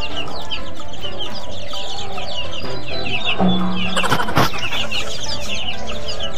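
A hen clucking amid many rapid, high, short chirps, with a couple of sharp clicks a little after four seconds in.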